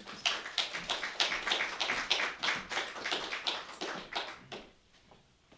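Applause from a small seated audience: many hands clapping that thin out and stop about four and a half seconds in.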